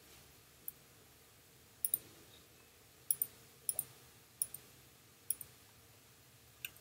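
Computer mouse buttons being clicked: a string of sharp clicks, most in quick pairs, roughly one a second.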